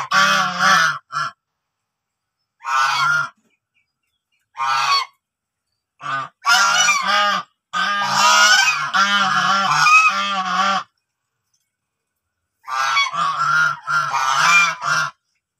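White Chinese geese honking in a run of loud bursts, several calls in quick succession in each, with short silent gaps between the bursts; the longest burst runs from about eight to eleven seconds in.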